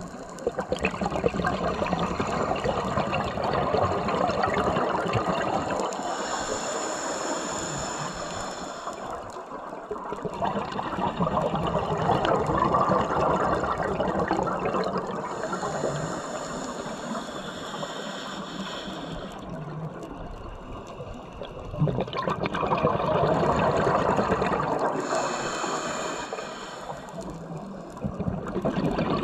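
Slow breathing through a scuba regulator, about three breaths: long swells of bubbling exhaust alternate with a high, whistling hiss, repeating roughly every nine seconds.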